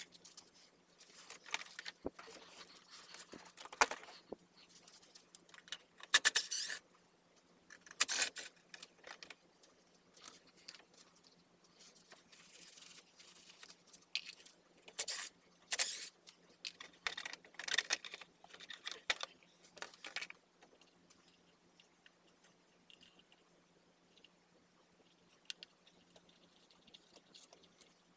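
Handling noises from working on a small kids' electric scooter and its battery: irregular plastic and metal knocks, clicks and rustles, busiest in the first two-thirds and sparser near the end, over a faint steady low hum.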